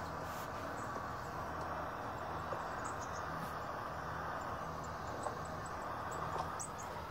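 Soundtrack of a bird video playing through a tablet's small speaker: a steady outdoor hiss with a few faint, scattered high bird chirps.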